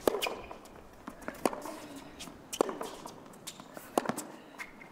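Tennis rally on a hard court: several sharp pops of racquet strings hitting the ball and of the ball bouncing, a second or so apart.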